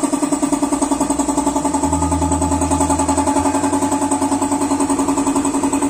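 Small single-cylinder scooter engine idling with its CVT belt-drive cover removed: a steady, fast, even pulsing run with a steady whine over it.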